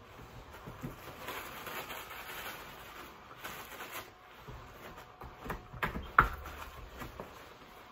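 Rustling and light clicks and knocks as small cupcake decorations and containers are handled on a table by someone in an inflatable dinosaur costume. There is a cluster of clicks late on, the sharpest about six seconds in.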